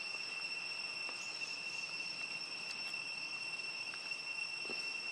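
Steady high-pitched insect drone in woodland, one unbroken whine with a higher overtone, and a few faint ticks over it.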